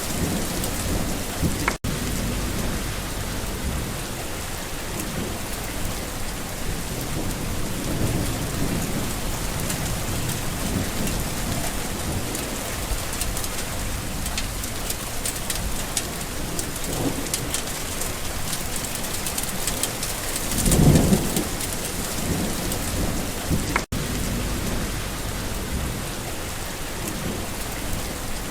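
Steady rain falling, with low rumbles of thunder swelling now and then, the loudest about three quarters of the way through. The sound cuts out for an instant twice.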